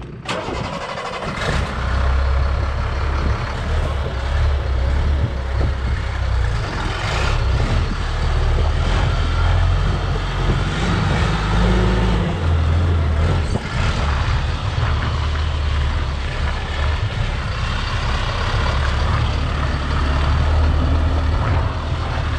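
Ford F750 medium-duty truck engine idling steadily, with a few brief clicks.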